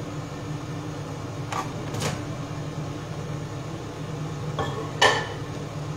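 A steady low hum of a kitchen appliance, with a few light knocks and clatters of kitchenware being handled. The loudest is a ringing clack about five seconds in.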